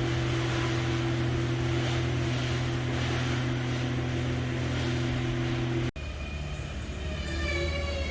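A large engine drones steadily. About six seconds in it breaks off sharply, and a different low drone follows, joined near the end by a high whine that slides slightly down.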